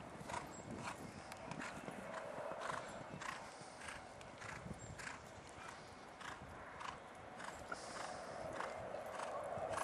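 A horse cantering on a sand arena: hoofbeats in a steady rhythm, one stride about every two-thirds of a second.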